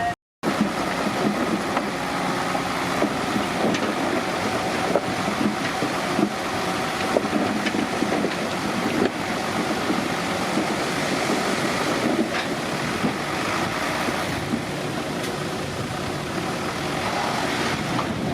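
Komatsu D31P crawler bulldozer's diesel engine running steadily under load, with scattered knocks and clanks from the tracks and blade.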